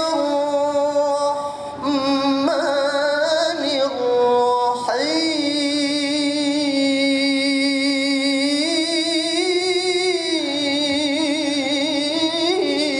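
A man reciting the Quran in the melodic tilawah style, holding long ornamented notes with a wavering pitch. There are short breaks about two and five seconds in, and the line climbs in pitch near the end.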